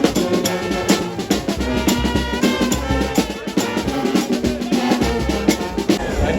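Loud music with a steady drum-kit beat.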